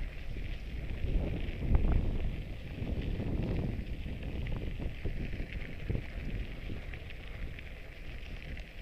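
Wind rumbling on the microphone over irregular crunching on a packed gravel path.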